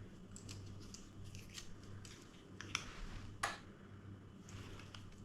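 Faint handling noises from unpacking a scope: scattered light clicks and rustles of packaging, the sharpest about three and a half seconds in.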